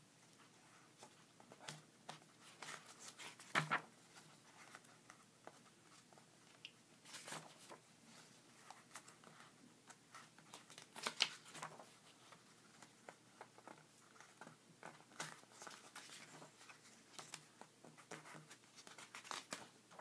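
Paper pages of a graphic novel being turned by hand: soft rustles and brushing of paper, with louder page flips about four seconds in and again about eleven seconds in.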